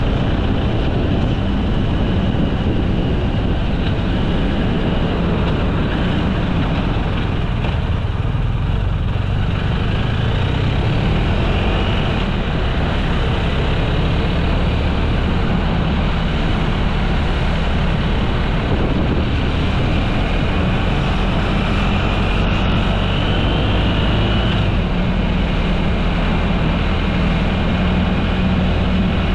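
Steady motor-vehicle drone: engine and road noise that stays low and even throughout, with a faint rising whine about three quarters of the way through.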